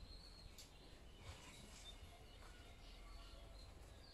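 Near silence: faint room tone with a few faint, short, high chirps and soft ticks.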